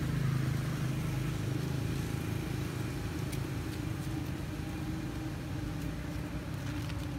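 A steady, low engine hum, like a motor idling, with a few faint clicks over it.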